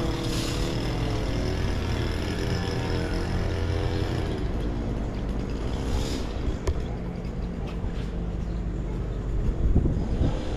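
Street traffic: a motor vehicle's engine running close by, its pitch drifting over the first few seconds, over a steady low rumble, with a couple of sharp clicks past the middle.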